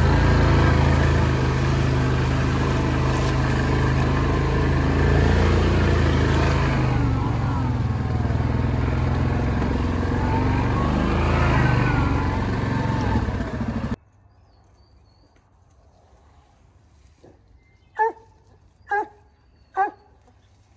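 Yamaha Grizzly 700 ATV's single-cylinder engine running under way, its pitch rising and falling with the throttle, until it stops abruptly partway through. After that it is quiet, and near the end a hound barks three times, each bark short.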